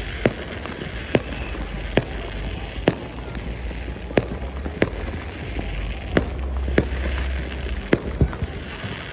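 New Year's fireworks going off: sharp bangs at irregular intervals, roughly one a second, over a continuous dense crackle of many more bursts.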